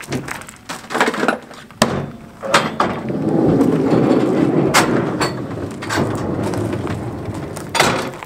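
A cooler lid thumps shut about two seconds in, after a few light knocks. Then a pickup's loaded bed slide rolls in on its rails for about five seconds with a steady rolling noise, ending in a clunk as it stops.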